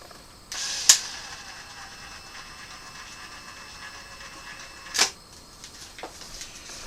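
Sharp plastic clicks of external wiring channel being handled and fitted: two loud clicks about four seconds apart, then a fainter knock a second later.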